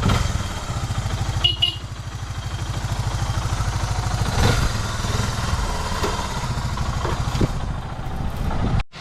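A vehicle engine running steadily with a fast, even low pulsing. The sound drops out abruptly just before the end.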